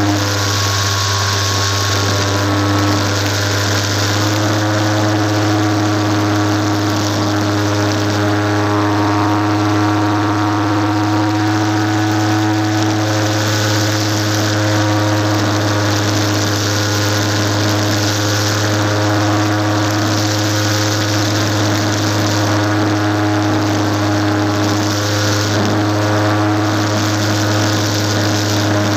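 Electric motor and propeller of a Multiplex Fun Cub RC plane running at steady throttle in flight, with wind noise on the onboard microphone that swells and fades every few seconds.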